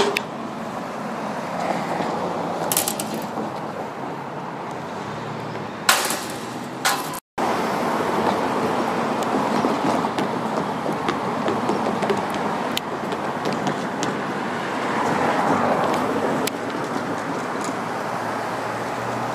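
Steady outdoor road traffic noise with cars passing, swelling gently now and then. A couple of brief knocks come around six and seven seconds in, and the sound cuts out for an instant just after.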